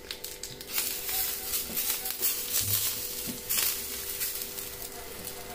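Hot tempering oil with mustard seeds, cumin, curry leaves and sesame seeds sizzling and crackling as it is spooned and poured over steamed dhokla, with a metal spoon scraping in the small tadka pan. The crackle is strongest through the middle and dies down near the end.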